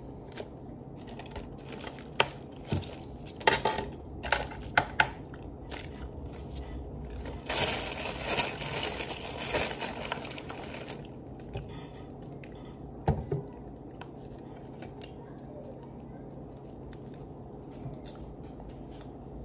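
Close-up eating sounds: bread being chewed and pulled apart, with scattered sharp clicks. A crinkling stretch of about three seconds comes near the middle, and a single knock about thirteen seconds in.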